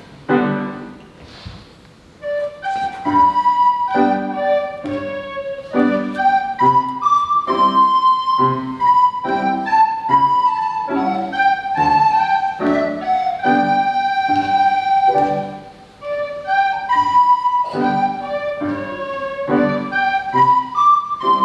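Recorder ensemble playing an arrangement of a classical piece: a melody line over a steadily pulsing lower accompaniment, with a brief pause about two seconds in before the music picks up again.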